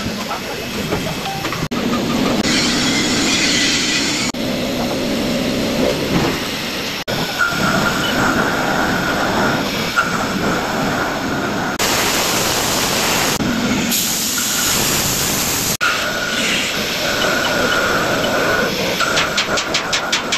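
CNC vertical machining centre milling a metal core plate with an end mill under coolant spray: a steady machining noise with a faint high whine in parts. The sound changes abruptly several times where the clips are spliced.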